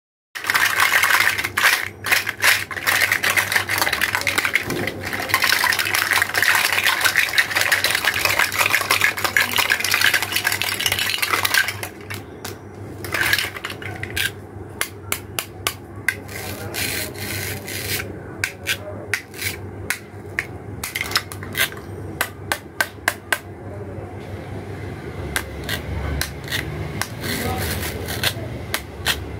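Hollow plastic toy fruits and vegetables clattering against each other and a plastic basket. For about the first twelve seconds there is a dense, continuous rattle as the pieces tumble together. After that come separate clicks and taps as single pieces are picked up, fitted and set down.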